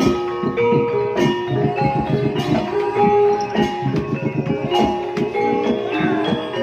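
Gamelan music accompanying an ebeg dance: tuned mallet instruments play fast interlocking notes over drums, with a heavier beat falling about every 1.2 seconds.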